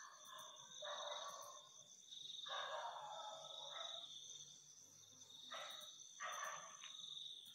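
Night insects, crickets, trilling steadily in a high, even chorus. Several soft, brief noises come and go over it.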